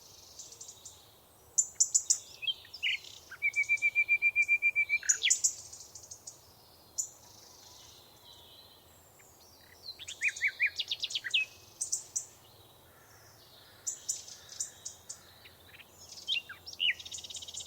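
Several wild birds singing and calling: scattered high chirps and short song phrases, with a fast even trill of about eight notes a second lasting nearly two seconds, starting about three and a half seconds in. Between phrases there are quieter gaps with faint background hiss.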